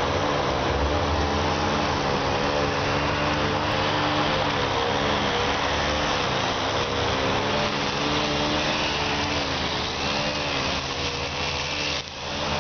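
A steady mechanical hum with a constant noisy hiss, and a tone that wavers slightly up and down. It dips briefly near the end.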